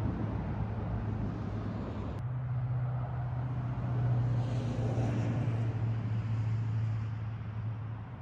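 A motor vehicle running steadily, a low engine hum under a hiss of road or wind noise. The sound changes abruptly about two seconds in and swells a little in the middle.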